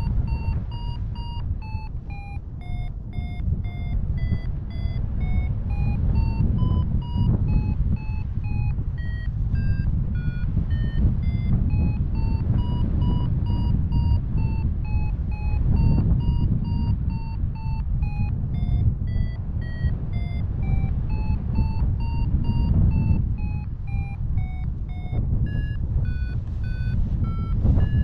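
A paragliding variometer beeping in a steady run of short tones whose pitch steps up and down as the climb rate changes. Underneath is strong, low wind rush on the microphone in flight.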